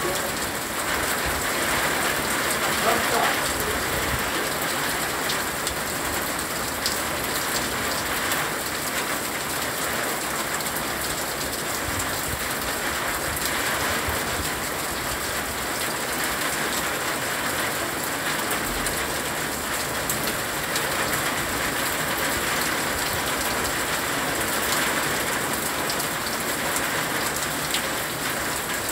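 Steady rain falling on garden plants and the ground around them: an even, unbroken hiss of many drops that holds at the same strength throughout.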